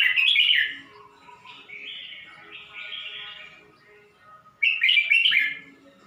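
Red-whiskered bulbul singing: two loud, quick warbled song phrases, one at the start and one about four and a half seconds in, with softer warbling notes between them.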